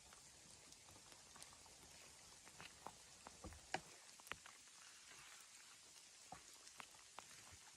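Near silence: a faint, even hiss with scattered light ticks and taps, one sharper tick a little before the middle.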